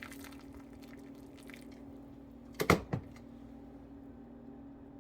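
Handling of a cast-iron tetsubin: light rustling and scraping over a steady hum, with a sharp double knock of iron about two and a half seconds in.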